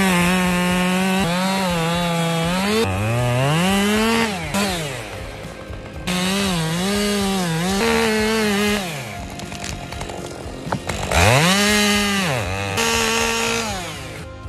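Two-stroke chainsaw revved to full throttle and cutting, its pitch rising quickly, holding high, then dropping back toward idle about four or five times.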